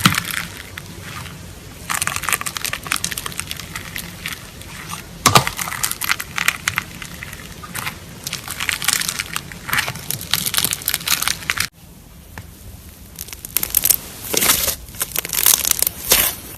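Slime being squeezed and squished by hand, with a continuous crackling and popping. It breaks off sharply about two-thirds of the way through, then picks up again.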